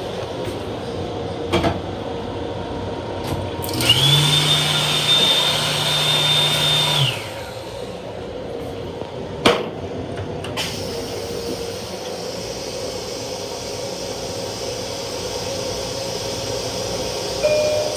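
Long Island Rail Road M7 railcar restroom toilet flushing: a motor-driven whir with a high steady whine lasting about three seconds, winding down at the end. Sharp clicks come before and after it, over the car's steady hum.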